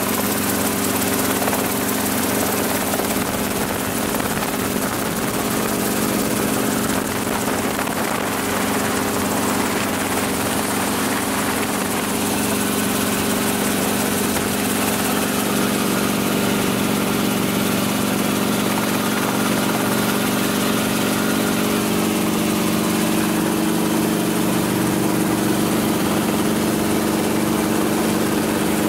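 Helicopter engine and rotor running steadily, heard from inside the cabin: an even drone with a steady hum of several tones under a broad hiss.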